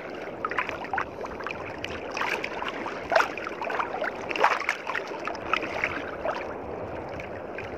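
Sea water splashing and lapping close by, a steady wash broken by many small irregular splashes.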